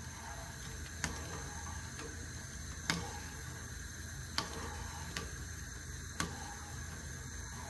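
Metal spoon clinking now and then against a saucepan while sugar water with ginger is stirred to dissolve the sugar: five sharp single clinks at uneven intervals over a steady low hum.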